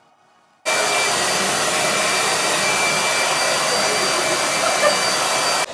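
Hair dryer blowing steadily, switched on abruptly just under a second in and cut off near the end, with a faint high whine from its motor.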